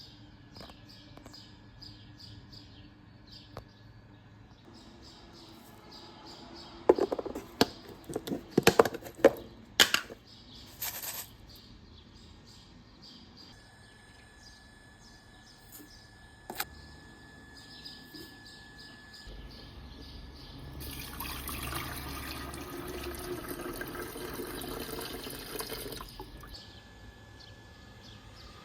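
An electric kettle being handled, with a burst of loud clattering knocks, then about five seconds of water running, like a tap filling the kettle. Faint birdsong in the background.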